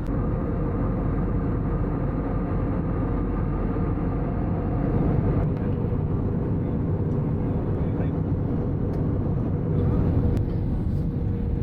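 Steady low engine rumble heard from inside a moving vehicle, with a faint steady whine over it.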